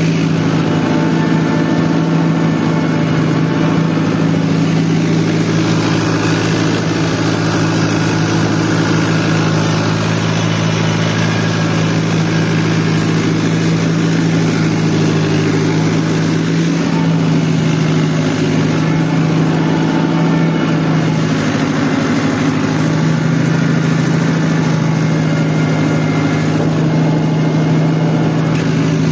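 Fiat 640 tractor's diesel engine running steadily as the tractor drives across a field, heard from the driver's seat. The engine note dips slightly about halfway through.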